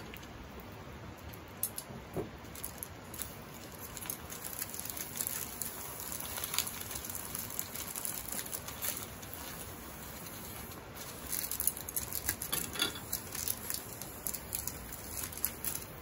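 Baking-paper parcels crinkled and pulled open with chopsticks and fingers: clusters of crisp paper crackles, busiest in the middle and near the end.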